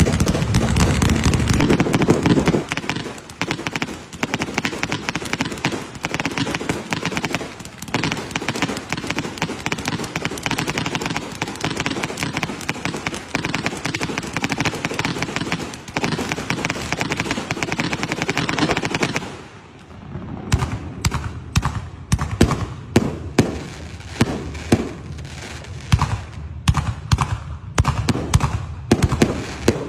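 Aerial fireworks going off: a dense, continuous crackling for most of the first twenty seconds, then, after a brief lull, a run of separate sharp bangs a few a second.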